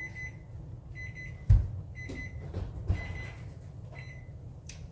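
An electric oven's beeper sounds in short high beeps several times while a glass baking dish is taken off the oven rack. The dish is set down with one loud knock about a second and a half in, followed by smaller knocks.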